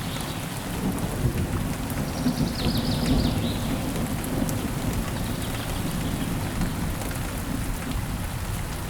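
Steady rain with a low rumble of thunder that swells about a second in, and a bird giving a quick run of short descending chirps about two to three seconds in.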